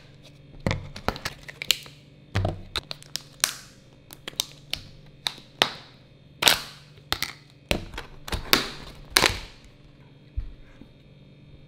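Thin clear plastic dessert-cup lids crackling and snapping as they are pried off, with a metal spoon tapping and scraping against the plastic cups: a string of sharp, irregular clicks that stops near the end.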